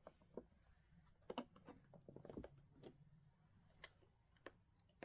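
Faint, scattered clicks and taps of plastic RC buggy parts being handled: the spoiler, screws and bodywork, about eight light knocks spread irregularly over the few seconds.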